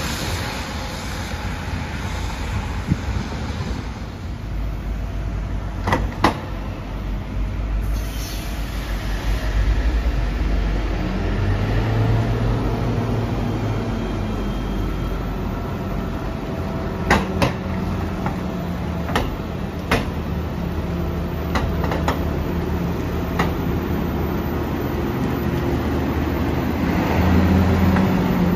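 Bombardier TVR rubber-tyred guided trams moving along their track: a steady low running rumble with a motor hum that swells as a set draws near and passes close near the end, with a scatter of sharp clacks in the middle.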